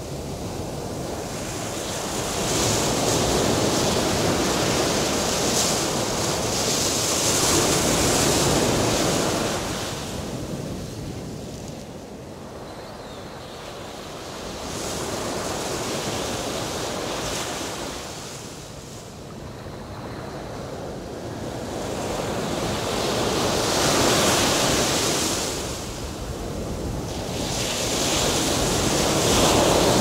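Ocean waves surging and washing, swelling and ebbing in slow surges about every seven or eight seconds.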